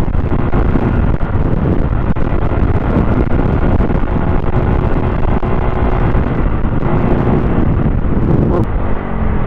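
Motorcycle riding at road speed on a wet road, its engine running steadily under heavy wind noise on the microphone.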